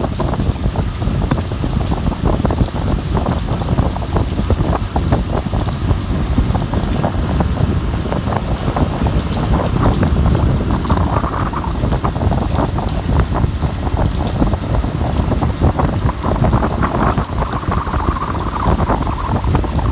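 Wind blowing hard with rain. The wind buffets the microphone, and the continuous noise is heaviest in the low range, with dense irregular crackle throughout.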